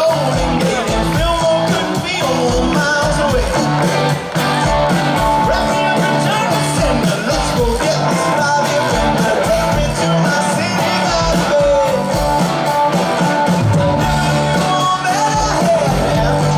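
Live pop-rock band playing through a concert sound system: a lead singer's vocal over guitars, keyboard and a steady drum beat.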